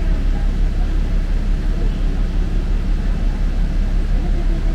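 Sightseeing bus engine running with a steady low drone, heard from inside the bus cabin.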